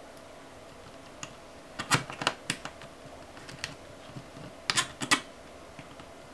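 Small sharp metallic clicks and taps of a screw and small screwdriver against the sheet-metal frame of an LCD panel, scattered and irregular, with quick clusters about two seconds and five seconds in.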